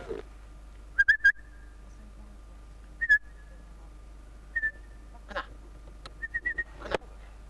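Short, clear whistled notes: three quick ones about a second in, single ones a little later, and a short run of notes near the end, with a couple of brief rustles between them.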